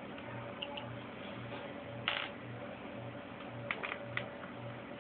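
Small screwdriver turning a screw out of a laptop's plastic case: light scraping and small clicks, with a short scrape about two seconds in and a quick run of clicks near the end.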